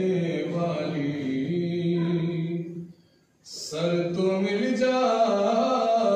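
A man's solo, unaccompanied melodic recitation of devotional Urdu poetry, chanted with long held notes. It breaks off for a moment about three seconds in, then resumes.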